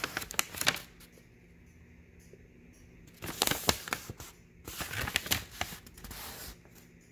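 Sheet of paper rustling and crinkling as it is handled and unfolded, in irregular spells at the start and again from about three to six seconds in.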